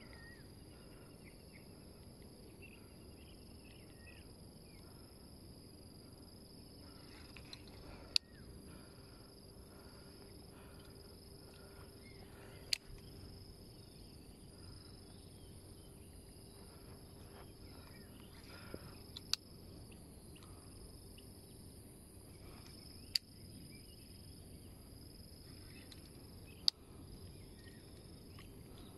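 Steady high-pitched chorus of insects, with five sharp clicks spaced a few seconds apart.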